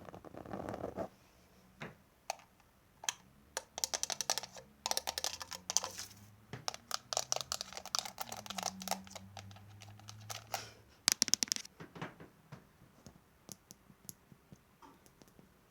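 Close-up ASMR tapping and clicking: fast runs of small sharp clicks in several bursts, with scattered single clicks between them.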